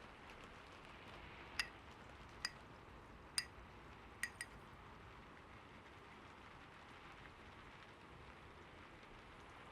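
Faint, steady rain-like patter with five short, bright metallic pings in the first half, the last two close together.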